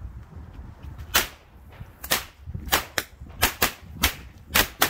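Pyrotechnik P.Schickl-Pyrofex Höllen Donner six-bang firecrackers (class 2 friction-lit bangers) going off: a run of about eight sharp, loud bangs at uneven intervals, beginning about a second in and running into the next second.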